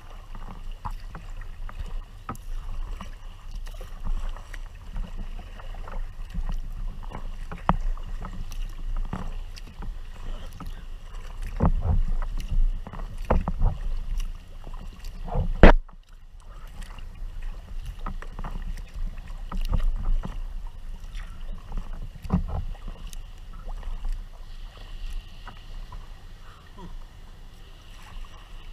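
Tempest 170 sea kayak under way: irregular paddle splashes and water slapping along the hull, over a steady low rumble on the deck-mounted microphone. A single sharp knock stands out a little past halfway.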